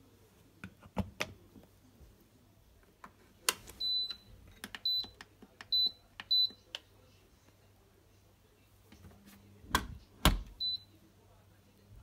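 Samsung dishwasher control panel beeping as its buttons are pressed: five short beeps on one high tone, the first a little longer, among scattered clicks and knocks. Two heavy knocks come about ten seconds in.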